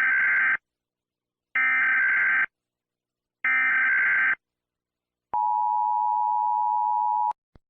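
Emergency Alert System tones: three harsh digital data bursts of about a second each, a second apart, then a steady two-note attention tone of about two seconds that cuts off abruptly, followed by a faint click.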